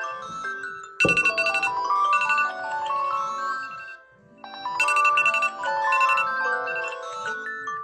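Several smartphone alarm tones playing at once: chiming, mallet-like melodies layered over a low swooping tone that repeats about once a second. The mix starts up sharply with a thump about a second in, and cuts out briefly about four seconds in before starting again.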